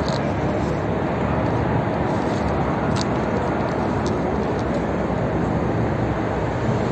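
Steady rushing background noise, with a faint click about three seconds in.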